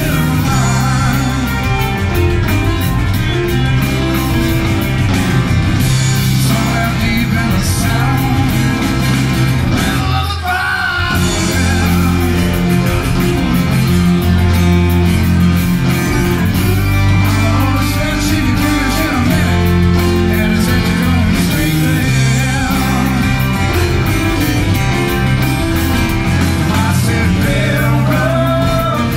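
Live Americana band playing a rock-country tune on acoustic guitars, fiddle, electric bass, drums and keyboard. The bass and drums drop out for a moment about ten seconds in, then the full band comes back.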